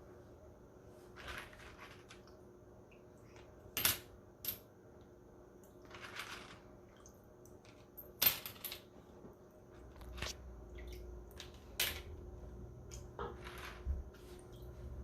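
Pennies clinking as they are dropped one at a time onto a plate, a few sharp clinks scattered several seconds apart.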